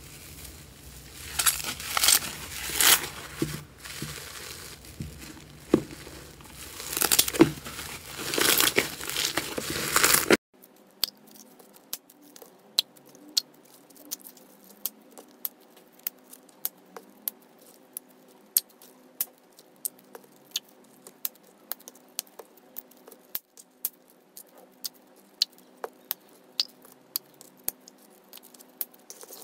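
Green foam slime stretched and squished by hand, crackling and popping in loud bursts. After an abrupt change about ten seconds in, small plastic packets of blue gel are pressed between the fingers, giving frequent small sharp clicks and crinkles.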